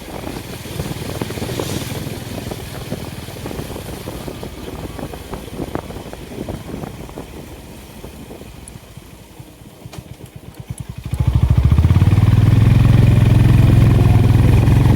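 Honda H'ness CB350's air-cooled single-cylinder engine thumping at low revs. About eleven seconds in the exhaust note jumps sharply louder and steadier, rising in pitch as the bike opens up and accelerates.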